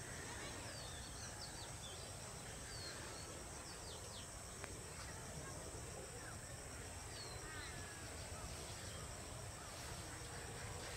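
Countryside ambience: a steady high insect drone with scattered short bird chirps, over a low steady rumble.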